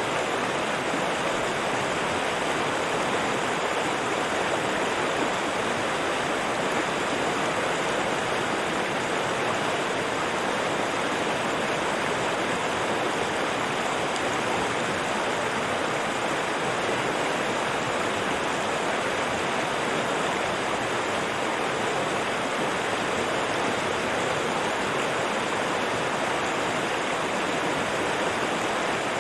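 River water rushing and babbling over rocks in a steady, even stream.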